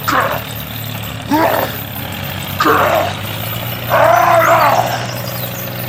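A voice gives short shouted calls about every second and a half, four in all, the last one longer, over a steady low hum.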